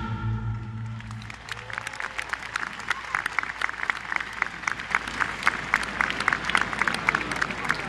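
A low held note of the show's music dies away in the first second or so, then a large crowd applauds with many hands clapping.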